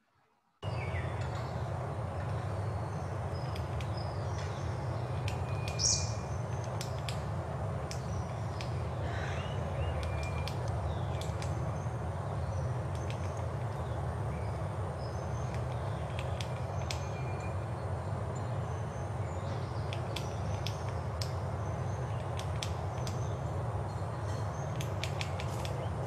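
Coppersmith barbet tapping and chiselling at a tree trunk with its bill, which the presenter takes to be the start of digging a nest hole: irregular short sharp taps over a steady outdoor hiss, with a few brief bird chirps. The sound starts abruptly about half a second in.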